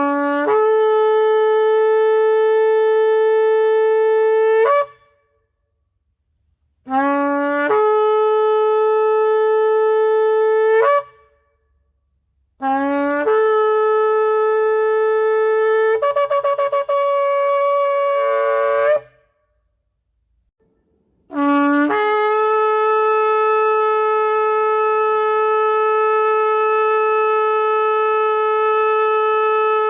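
Kudu-horn shofar blown in four long blasts. Each opens with a brief low note that jumps up to a steady higher note. The third breaks into a rapid wavering warble in its second half. The last blast is the longest and is still sounding at the end.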